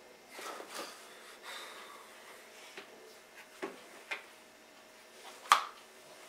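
A man's soft breaths and faint rustling in a quiet room, with a few small handling clicks; a single sharp click about five and a half seconds in is the loudest sound.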